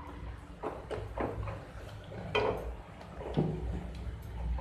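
Black plastic spatula scraping and knocking against a nonstick kadai, a stroke about once a second, as onions and chilli powder are stirred in hot oil. A low steady hum runs underneath.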